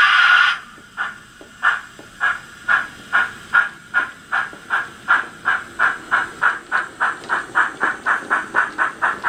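Loksound 5 micro DCC sound decoder playing a USA Tank 0-6-0T steam locomotive sound through the model's small speaker, as the loco pulls away. A steady hiss cuts off about half a second in. Then the exhaust chuffs start and quicken from about two a second to about four a second as the engine gathers speed.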